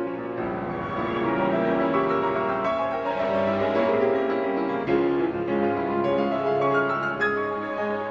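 Slow instrumental background music led by piano, with sustained notes.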